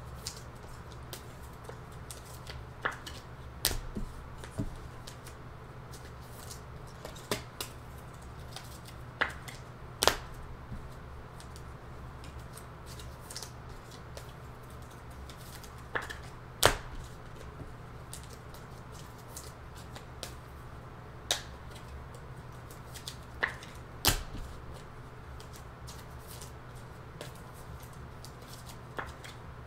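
Scattered sharp clicks and taps from hands handling things on a tabletop, about a dozen over the half minute, some in quick pairs, over a low steady hum.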